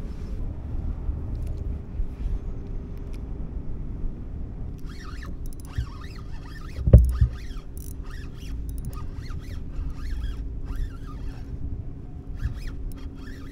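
Wind rumbling on the microphone while a spinning rod is cast and its reel worked. There is a sharp knock about seven seconds in, and irregular, quick scratchy sounds from the reel through the middle.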